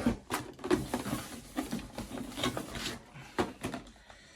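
Rustling packaging and small boxes being handled, with a run of short clicks and light knocks that thin out to a few separate taps near the end.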